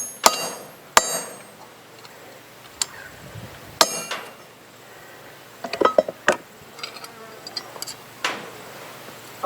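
Irregularly spaced sharp metal strikes and clinks with a short ring: hammer and chisel work on a steel spoon during cold forging.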